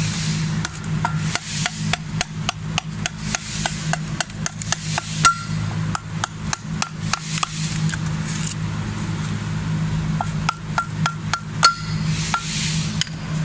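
Hammer striking the new engine mount's metal ear again and again, about three blows a second, to drive it through the tight slot in the bracket. Some blows give a short metallic ring, over a steady low hum.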